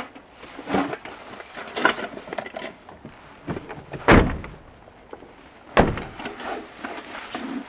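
Pickup truck doors being shut: a loud, deep slam about four seconds in and a second sharp knock shortly after, with smaller knocks and rustling of handling between.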